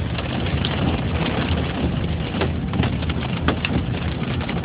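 Heard from inside a car cabin: rain pattering on the car, with scattered sharp taps on the glass and roof, over the steady low rumble of the car driving on a hail-covered road.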